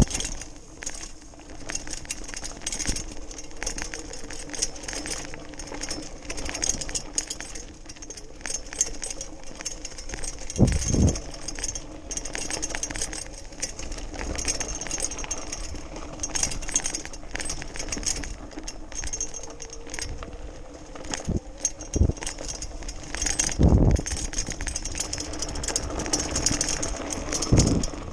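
Electric BMX bike ridden fast over a rough dirt-and-gravel trail: a steady electric motor whine under the constant rattle of the bike over the loose surface, with a few heavy low thumps at intervals.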